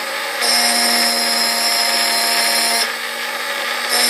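Xtreme Challenge mini rotary drill running with its smallest bit, grinding an engraving into a glass wine bottle. Its steady whine drops out twice, briefly at the start and for about a second near the end.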